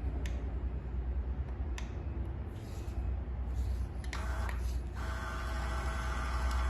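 Smart door lock being worked: two sharp clicks in the first two seconds. About five seconds in, a steady electronic tone begins and holds, over a low steady hum.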